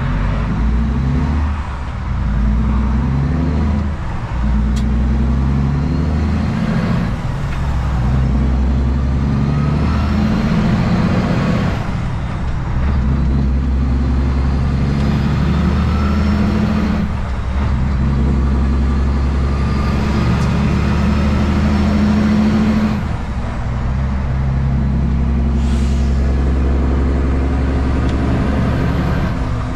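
Heavy truck's diesel engine pulling away from a stop and shifting up through the gears of an 18-speed Roadranger manual gearbox. The revs climb in each gear and drop briefly at each of several shifts, with a high whine that rises along with them. There is a short hiss of air near the end.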